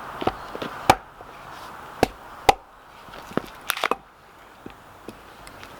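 Sharp strikes of a hand tool against the bark of a seasoned log, knocking the bark loose to debark it. About ten hits come at irregular intervals, with a quick run of three about two-thirds of the way through. The bark is dry and stuck fast, so it does not break away easily.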